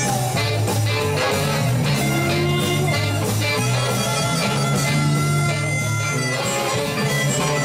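A live band playing: electric bass and electric guitar with saxophones over a steady drum beat, in a dense, loud mix.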